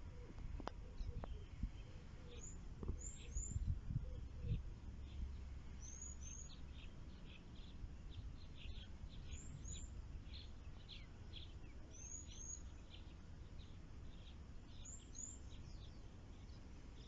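Wild birds calling: a pair of short, high chirps repeated every two to three seconds over many quicker, lower chirps. Low rumbling bumps come through in the first few seconds.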